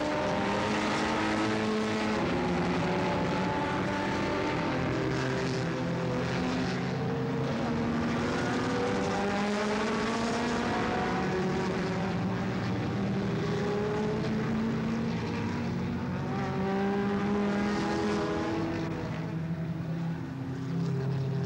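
A pack of production saloon race cars passing at racing speed, many engines overlapping, their pitches rising and falling as the cars accelerate and pass. The field thins near the end, leaving a steadier lower engine note from the last cars.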